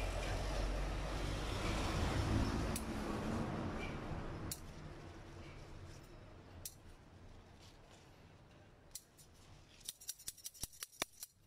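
Chili pepper plant leaves rustling as the shoot tips are picked, fading after a few seconds. A few single sharp clicks follow, then a quick run of small snips from a pair of scissors near the end.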